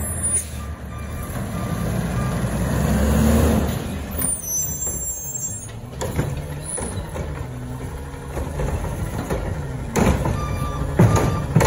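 Heil front-loading garbage truck's diesel engine revving to drive the hydraulics as its automated arm grabs, lifts and empties a wheeled trash cart, with metallic clunks about six seconds in and again near the end as the cart is shaken out. A backup alarm beeps near the end.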